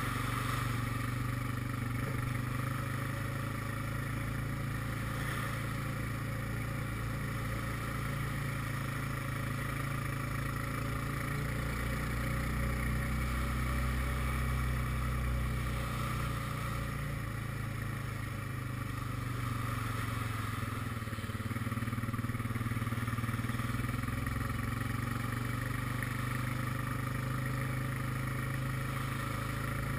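ATV (quad bike) engine running steadily at cruising speed, heard close from the rider's seat, with a slight easing of engine speed about two-thirds of the way through.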